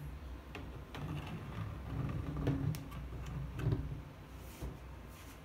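A graphics card being handled against a motherboard: scattered light clicks and knocks of plastic and metal, over a low rustle of handling.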